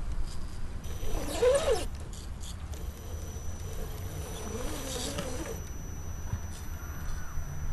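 Axial SCX10 radio-controlled rock crawler's small electric motor and gears whining as it crawls over rocks. The whine rises and falls in pitch with the throttle, about a second and a half in and again near the middle, over a low rumble.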